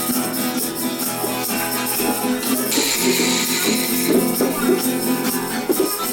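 Instrumental jam music: a pitched instrument plays notes over shaken jingling hand percussion, which gets louder about halfway through.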